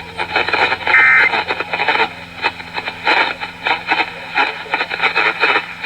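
The last of the three Emergency Alert System end-of-message data bursts: a short burst of digital data tones about a second in. It marks the end of the broadcast severe thunderstorm warning. It sits over noisy, hissy radio audio.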